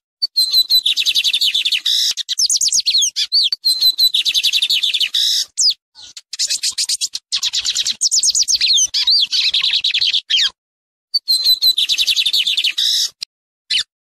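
Male lined seedeater (bigodinho, Sporophila lineola) singing: rapid runs of high, quickly repeated notes in phrases of a few seconds, broken by short pauses about six seconds in, around ten and a half seconds, and near the end.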